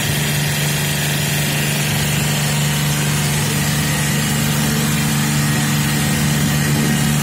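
Hawk NPM1525R high-pressure plunger pump and its electric drive motor running steadily, a constant machine hum with a strong low tone.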